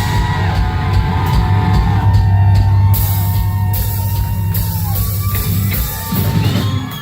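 Live rock bass solo: loud, heavy electric bass notes with drums, played through a concert PA, with crowd whoops and shouts over it. The sound thins briefly about six seconds in before picking up again.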